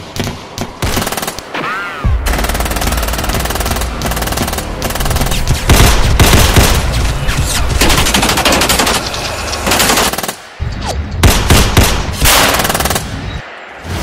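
Gunfire in a shootout: a few separate shots at first, then a long dense stretch of rapid firing over a low rumble, a short break about ten seconds in, then more shots.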